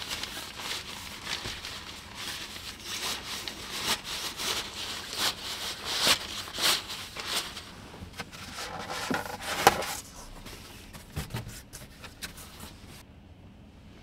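Rustling, crinkling and scraping handling noises with scattered clicks, as someone moves about and handles gear. A sharp click comes about two-thirds of the way through, and it quietens after that.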